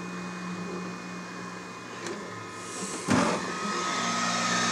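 Flashforge Adventure 3C 3D printer running at the start of a print: a steady hum of its motors and fans. About three seconds in there is a brief rustling knock, after which a higher steady whine joins and the sound grows a little louder.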